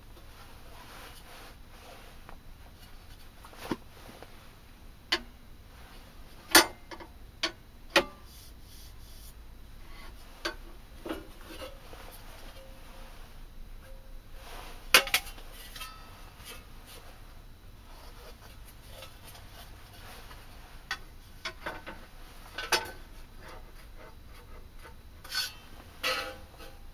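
Scattered sharp clicks and knocks with light rubbing in between, from hands handling metal tools and parts; the loudest knocks come about six and a half and fifteen seconds in.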